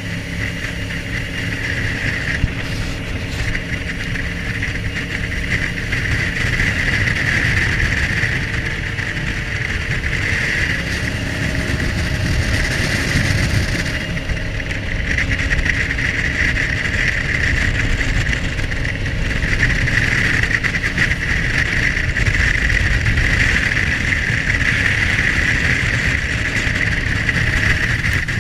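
Jet boat running at speed: a steady engine drone mixed with the rush of water and spray around the hull.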